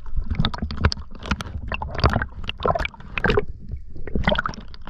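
Water splashing and gurgling close to a waterproof camera as a freediver dives from the surface, heard as a quick, irregular run of splashes.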